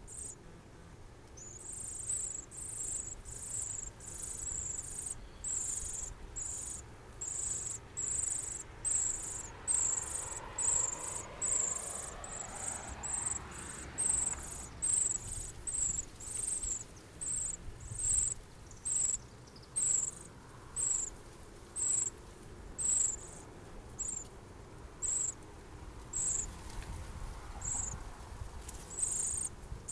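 An insect chirping steadily in short, high-pitched pulses, about one to two chirps a second.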